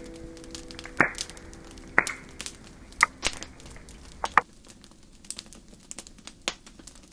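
Wood campfire crackling, with sharp pops about once a second, under the tail of background music that fades away over the first few seconds.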